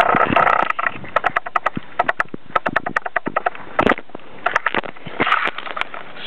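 Rapid, irregular clicks and crackles with short bursts of rustling: handling noise on a handheld camera's microphone as it is moved about.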